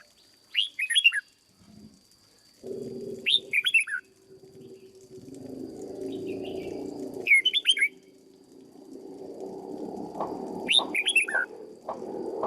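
Red-whiskered bulbul singing short, quick whistled phrases, four of them a few seconds apart. A low rumble comes and goes underneath and grows louder near the end.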